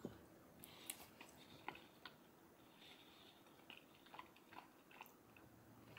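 Near silence with faint chewing: a mouthful of rehydrated chili and rice being chewed, with a few soft scattered mouth clicks.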